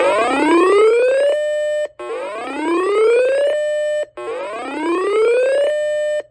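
Electronic whooping alarm siren: a buzzy tone sweeps upward, holds a steady pitch briefly, then cuts off, repeating about every two seconds, three times and starting a fourth.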